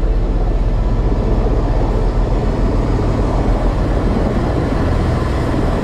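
Helicopter turbine and rotor noise heard from inside the cockpit, a loud, steady rush, on the approach to land on a helipad.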